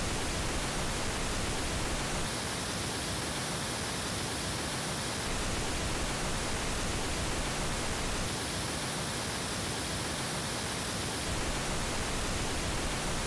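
Pink noise test signal playing steadily. Twice, for about three seconds each time, it switches to a version convolved with the Paradigm Founder 40B bookshelf speaker's measured response, which sounds brighter, with more treble.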